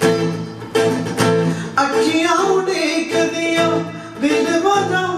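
Acoustic guitar strummed in a steady rhythm, with a man's voice singing a held, wordless line over it.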